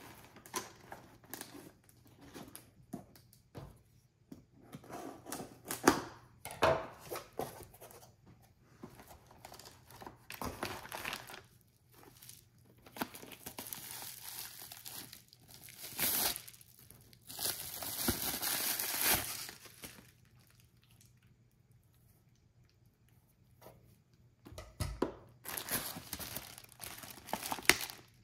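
Cardboard box and plastic packaging being handled and unpacked: irregular rustling, crinkling and tearing of plastic and cardboard, with a quiet pause of a few seconds about two-thirds of the way through.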